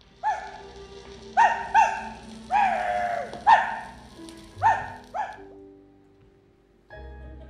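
Small-dog yapping: seven short, high barks, the fourth one drawn out longer, over soft sustained music. The music drops away after the last bark and a new chord comes in near the end.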